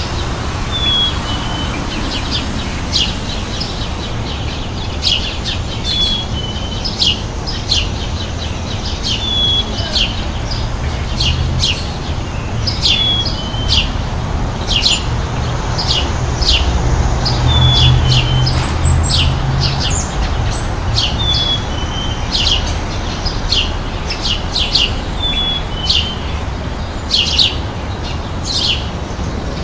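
Small birds chirping: quick high chirps throughout, with one short call repeating every few seconds, over a steady low rumble that swells about two-thirds of the way through.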